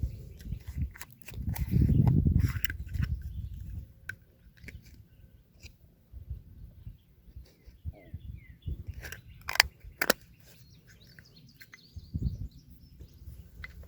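Outdoor ambience: low rumbling noise on the phone's microphone, loudest a couple of seconds in, with scattered clicks, two sharp knocks about two-thirds of the way through, and a few brief bird chirps.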